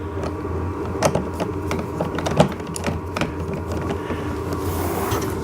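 A screwdriver turning a bolt through a nut in a plastic toy tractor's steering column, with irregular clicks and rattles of the screw and plastic parts over a steady low hum.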